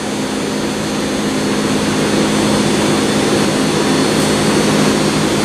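Steady drone of running machinery, an even rushing noise with a low steady hum, unchanging throughout.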